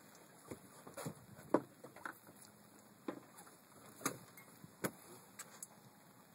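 Scattered light knocks and clicks, about eight of them, irregularly spaced, the loudest about one and a half seconds in.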